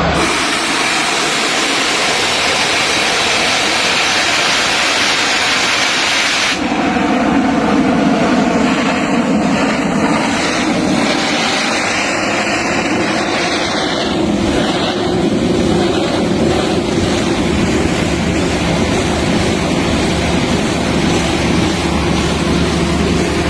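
A loud jet of compressed air and water blasting from an air compressor line, a dense hiss that changes abruptly about six and a half seconds in to a lower, rougher rushing over a steady machine hum.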